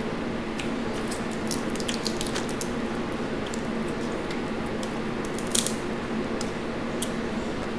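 Boiled crawfish and blue crab shells being cracked and peeled by hand: scattered small crackles and clicks, with a sharper crack about five and a half seconds in, over a steady hum.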